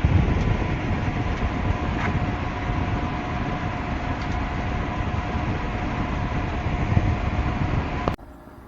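Portable spot air conditioner running: steady, loud low fan noise with a faint steady hum, cutting off suddenly near the end.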